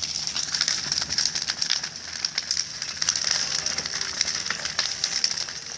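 A large bonfire of wooden boards and debris burning, crackling with many irregular sharp pops over a steady hiss.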